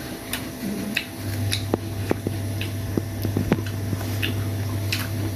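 Kitchen knife peeling and paring a young green mango: a run of small sharp cuts and scraping clicks through the firm skin, over a steady low hum.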